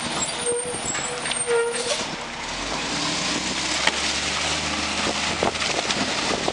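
Mack MR front-loader garbage truck driving off, its diesel engine running under load, with a few short squeals in the first two seconds and several sharp knocks and clanks after about four seconds.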